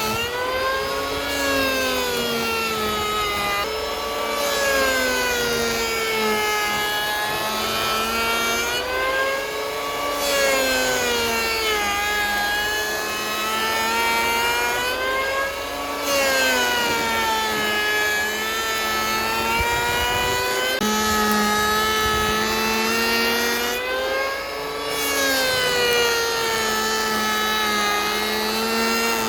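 Powered sawmill saw running, its pitch sagging and recovering in slow swells every few seconds as it takes load in the wood and frees up, over a steady low hum.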